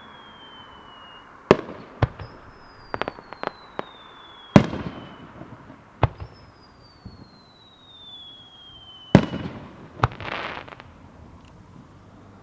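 Aerial fireworks: shells go up with long whistles that fall steadily in pitch, and each whistle ends in a sharp, loud bang as the shell bursts, three times. Smaller pops and a short crackle sound between the bursts.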